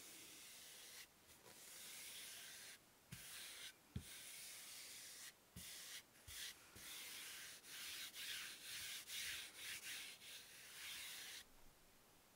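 Faint, soft scratchy rubbing of a palm sliding over fabric stretched across a board, in repeated short strokes, with a few light knocks in the middle; the rubbing stops shortly before the end.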